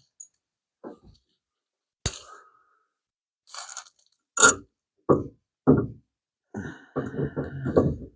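Scattered metal knocks and clicks as a clutch pedal and its parts are handled and fitted. Near the end comes a quick run of rapid clicks, about five a second.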